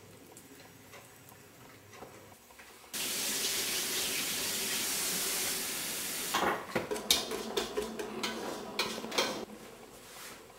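Kitchen tap turned on about three seconds in, water running steadily into the sink for about three seconds, followed by irregular clattering of dishes and pans in the sink.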